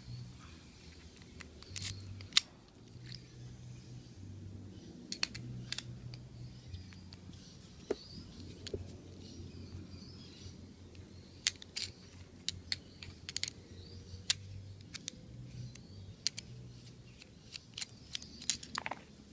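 Scattered small metallic clicks and taps as a padlock is taken apart by hand, its tiny screws and small metal parts being handled, over a low steady hum.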